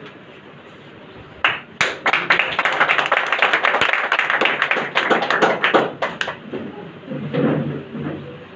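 A small crowd applauding: dense clapping starts about one and a half seconds in and dies away after about five seconds, followed by voices talking.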